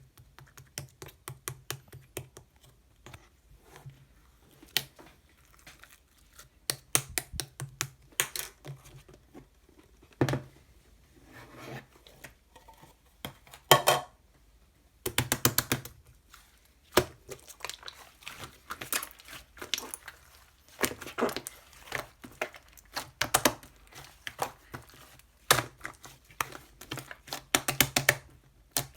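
Hands squishing, pressing and stretching glucose slime, giving irregular sticky clicks and pops, some in quick runs.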